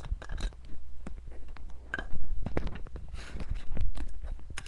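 Irregular crinkling, rustling and sharp clicks of a camera lens and its packaging being handled, with a louder click near the end.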